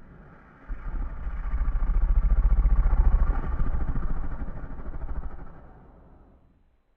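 Battery-powered snoring toy giving one long, slowed-down buzzing snore that swells and then fades away over about six seconds, its batteries nearly dead.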